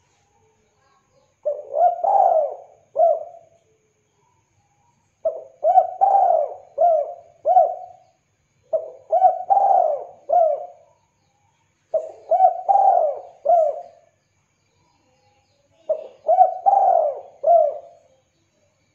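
Spotted dove cooing: five phrases of several coos each, one phrase every three to four seconds.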